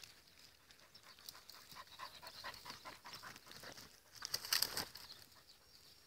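Footsteps crunching through dry scrub, with twigs crackling and brush rustling in quick short snaps, and a louder burst of crackling about four and a half seconds in.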